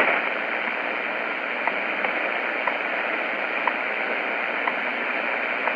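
Shortwave radio receiving the WWV time signal on 5 MHz: steady static hiss with a short tick once a second, the station's seconds pulses. Underneath are faint low hum pulses of different lengths, WWV's 100 Hz time code.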